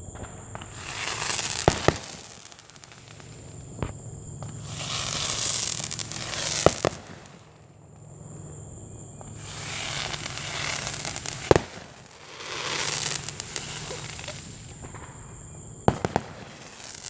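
Fireworks going off: about five sharp bangs several seconds apart, between long stretches of crackling and hissing.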